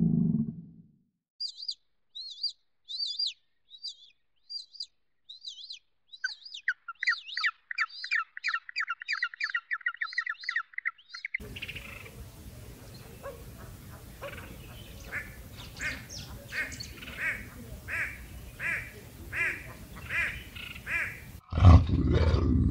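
Bird calls: sharp falling chirps, then a fast run of chirps, followed by calls repeated about every two-thirds of a second over a steady background hiss. A sudden low rumble comes near the end.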